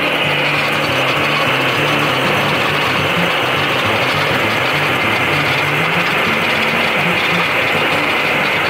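Lucas Mill portable swing-blade sawmill running steadily, its engine driving the circular blade through a log as the saw head is pushed along the rails; the engine note wavers slightly under the load of the cut.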